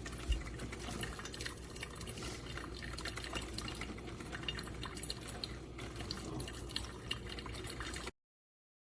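Water trickling and dripping steadily, with many small crackling clicks, then cutting off suddenly about eight seconds in.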